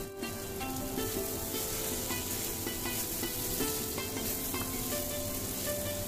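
Drumstick pods, potatoes and dried fish frying in mustard paste in a wok on low flame, sizzling steadily as a wooden spatula stirs them. Soft background music plays over it.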